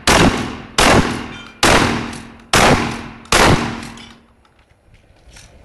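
Shotgun fired five times in quick succession, about one shot every 0.8 seconds, each blast trailing off in a short echo; the string of shots ends a little after three seconds in.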